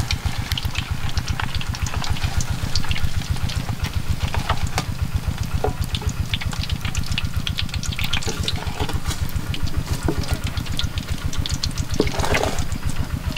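An engine idling with a fast, even low throb, over the light crackle and spitting of eggs frying in oil over a wood fire.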